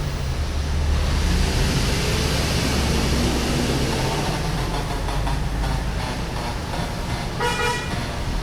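Steady low rumble with an even hiss, like vehicle noise, swelling about a second in. A brief pitched sound comes near the end.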